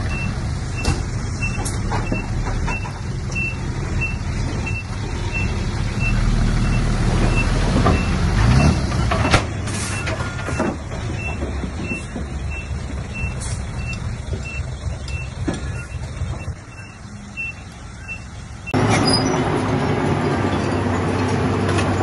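Diesel engine of a heavy earthmoving machine running, with a backup alarm beeping steadily for the first few seconds. The engine works harder and revs up for a couple of seconds about a third of the way in, with sharp knocks and clanks now and then. Near the end the sound jumps abruptly back to a louder, steady engine rumble.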